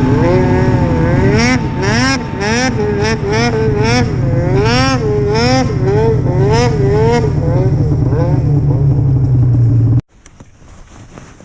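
Two-stroke snowmobile engine running hard, its pitch rising and falling quickly and repeatedly as the throttle is worked, over a steady low drone. Near the end the sound cuts off abruptly.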